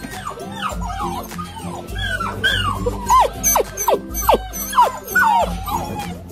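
A litter of puppies whining and yipping together in many short, overlapping high cries, with several sharper yelps in the middle. Background music with a steady beat plays underneath.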